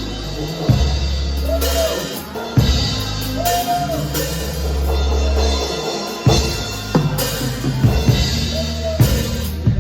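Live band music recorded from the room: a drum kit with bass drum and snare hits over long held bass notes.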